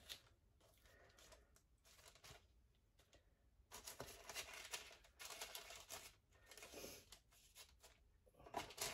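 Faint rustling and crinkling of parchment paper as the dough wrapped in it is pressed and rolled by hand, mostly in the second half.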